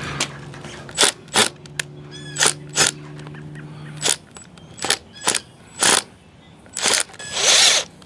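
Cordless drill with a socket bit running in short repeated bursts of under half a second, backing a screw out of a truck tire's tread; the bursts grow longer near the end. The screw is the puncture behind the flat.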